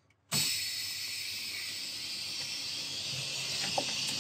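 Compressed air hissing out of an air-brake line after the valve is pushed in, starting suddenly about a third of a second in and holding steady. The brake system is being bled of air so the spring brake chamber can be disconnected and changed.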